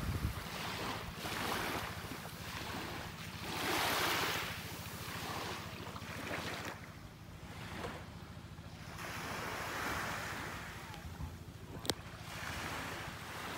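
Small waves washing up on a sandy shore, swelling and fading every few seconds, with wind buffeting the microphone. A steady low hum runs underneath, and a single sharp click comes near the end.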